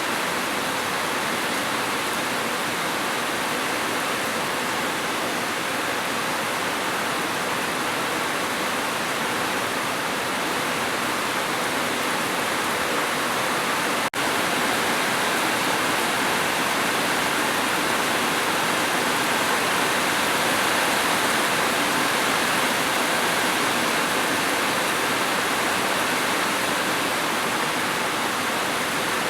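Steady rain, an even hiss with no separate drops standing out, broken by a momentary dropout about halfway through.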